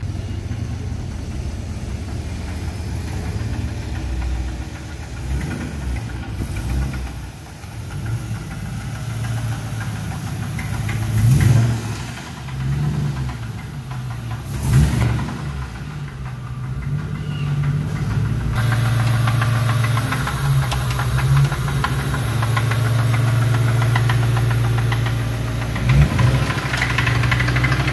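Ford Mustang GT's 4.6-litre two-valve V8 running with a heavy rod knock from a worn rod bearing, revved up briefly several times.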